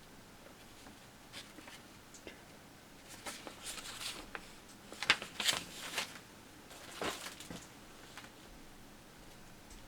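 Plastic model kit parts and their packaging being handled: a run of rustling and light plastic clicks, busiest and loudest in the middle.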